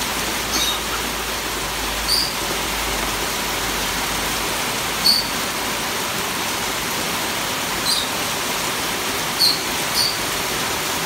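Short, high parrot squeaks, six of them at irregular intervals, the loudest about five seconds in, over a steady hiss.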